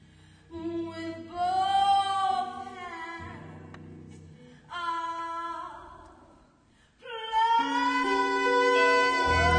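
A woman singing slow, long phrases with vibrato over sparse guitar with low bass notes, live. After a brief hush just before seven seconds in, she holds a long rising phrase as the accompaniment swells.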